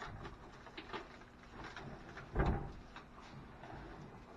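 Light knocks and scrapes, with one heavier thud about two and a half seconds in, from a heavy vehicle tailgate being lifted and carried by hand.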